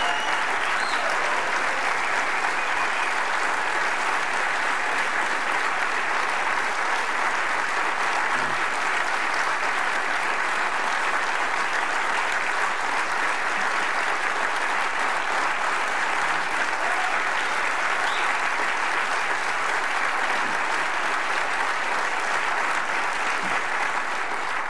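Large audience applauding steadily in a long ovation, which cuts off sharply at the end.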